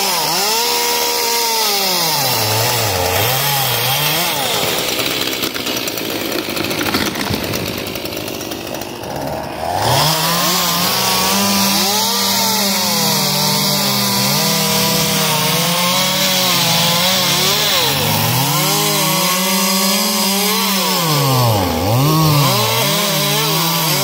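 Gasoline chainsaw cutting through a felled tree trunk at high revs. The engine's pitch dips and recovers several times as the chain bites into the wood.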